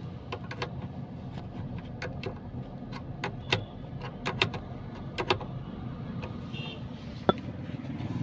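Irregular sharp metallic clicks and taps from a tool working the handbrake cable adjuster and lever on a Maruti Suzuki WagonR, tightening the slack cable that made the handbrake rattle, over a steady low hum.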